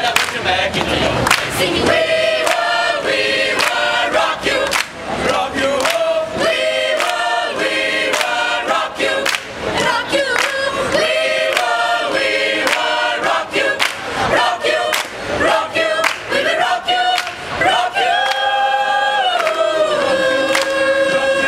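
A choir of teenage girls and boys singing together, ending on long held notes.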